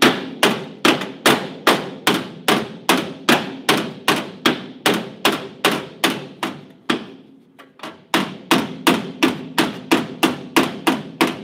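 The pick end of a dolly hammer lightly tapping up a low spot in a welded sheet-metal panel: a steady run of sharp metallic taps, about two or three a second, each ringing briefly. The taps pause for about a second around seven seconds in, then resume and stop just before the end.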